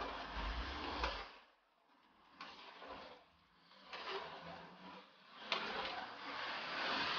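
A metal spatula stirring soup in a large aluminium wok: scraping and sloshing in strokes with short pauses, and a few sharp clicks of metal against the pan.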